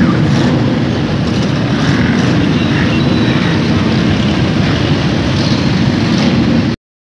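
Many motorcycle engines running together in a large crowd of bikes, a steady, dense din that cuts off suddenly near the end.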